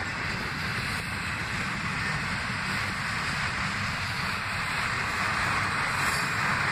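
Freight train cars rolling past on the rails: a steady rumble with a hiss of wheels on track.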